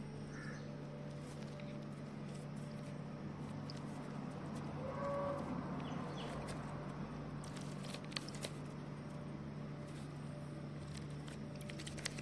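Light handling of craft paper and a thin stick, with a few soft clicks, over a steady low hum.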